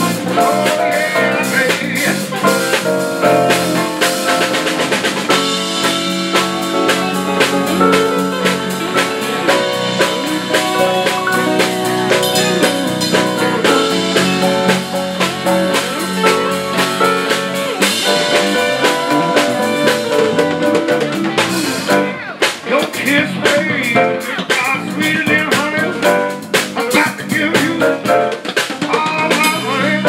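A live band playing an instrumental stretch on drum kit, electric and acoustic guitars and keyboard.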